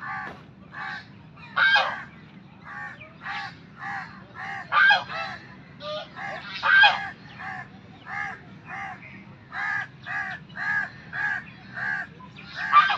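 White domestic goose honking over and over, about two calls a second, with a few louder, harsher honks among them.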